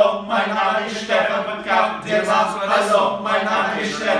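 Male voices singing a chant-like phrase in short, recurring phrases, over a steady low held note.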